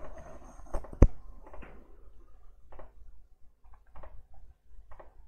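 Computer keyboard keystrokes and mouse clicks: two sharp clicks about a second in, then faint scattered taps.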